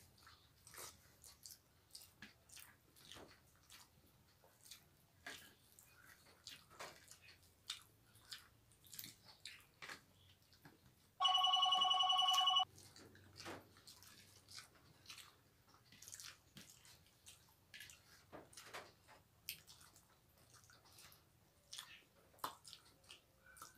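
Faint wet clicks and smacks of two people eating rice and fish curry with their fingers: chewing, lip smacks and fingers working the food on the plates. About eleven seconds in, a phone ringtone sounds loudly for about a second and a half as one steady chord of several tones, then stops suddenly.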